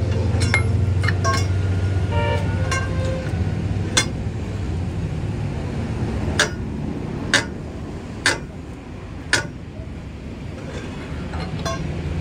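Steel hand tools clinking against a truck's rear wheel hub during an axle repair: a run of sharp metallic clinks, the loudest five coming about a second apart in the middle, over a steady low engine hum.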